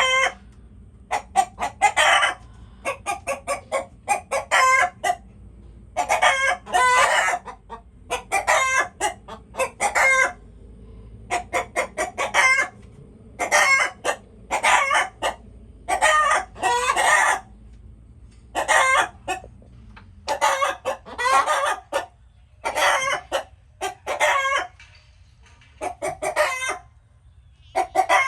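Chickens clucking and calling in repeated runs of quick, short clucks broken by longer calls, about one run every second or two.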